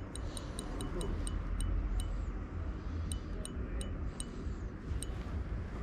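Sparse, sharp high ticks, each with a faint ring, coming irregularly two or three a second over a low steady rumble.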